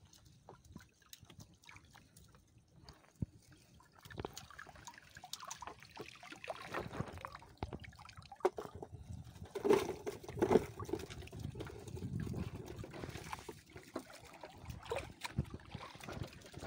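Water dripping and splashing as a wet fishing net full of small fish is hauled up and emptied over the side of a wooden boat, with two sharp knocks a little past the middle.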